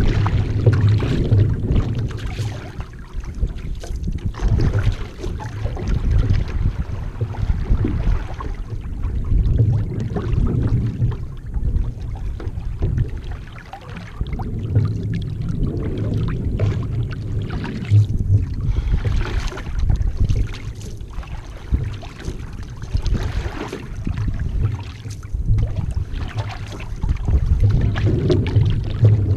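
Water rushing and splashing along the hull of a Kamanu one-person outrigger canoe as it is paddled, with paddle splashes and a low rumble of wind on the microphone, rising and falling in level every few seconds.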